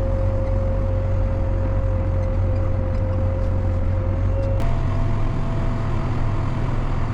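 Farm tractor engine running steadily under way, a deep hum with a steady whine over it. About two-thirds of the way in, the sound switches abruptly to a slightly higher whine and a changed engine note.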